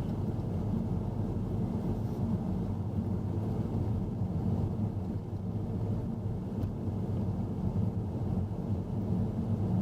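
Car driving along a road, heard from inside the cabin: a steady rumble of engine and tyre noise.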